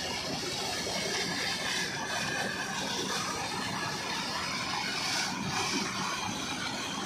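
Motor-driven bladed water-lifting wheel churning canal water, a continuous rush and splash of water thrown up and falling back, with a steady low hum underneath.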